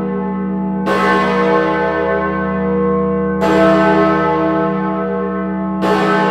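Great George, the large bronze bell at Bristol, swung on its wheel and struck three times about two and a half seconds apart, each stroke leaving a long ringing hum under the next. It is being tolled in mourning for the Queen.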